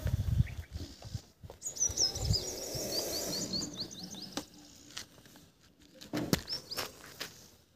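A small bird chirping in a quick run of short, falling notes for about three seconds, over low rumbling noise. A few sharp clicks near the end.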